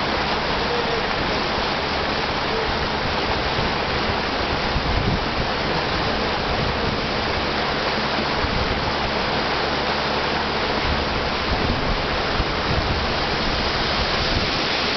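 Steady rushing noise of wind and water from a small fishing boat underway, with the low hum of its motor underneath.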